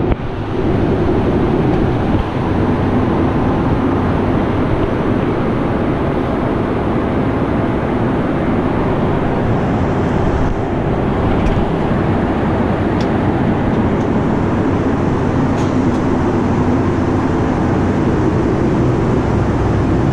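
Loud, steady roar and rumble inside the cabin of a Boeing 757-200 airliner.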